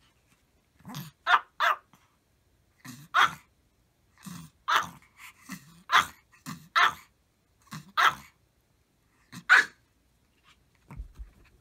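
A Maltese barking in short, sharp barks, singly and in quick runs of two or three, about ten in all. The barking stops near the end, leaving a few soft thumps.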